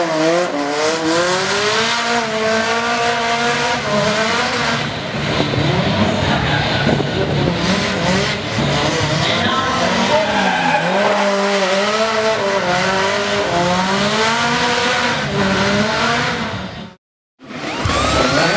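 Toyota Vios Challenge racecar's four-cylinder engine held at high revs, its pitch bouncing up and down, while the tyres spin and squeal in a smoky burnout. About a second before the end the sound cuts out abruptly, and then another car's engine is heard revving up.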